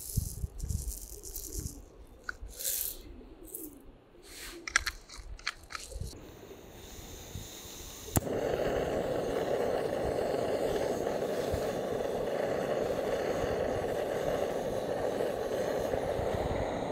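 Coriander seeds poured from a glass tube rattle and tick into a metal pot. About eight seconds in, a gas canister stove's piezo igniter gives one sharp click and the burner lights, then burns with a steady rushing hiss.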